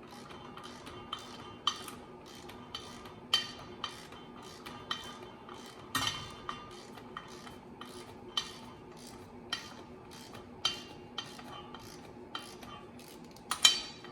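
Hand ratchet and socket clicking and clinking on the flywheel bolts as they are drawn down in stages onto the crankshaft. Sharp metallic clicks come about every half second, a few standing out, the loudest near the end.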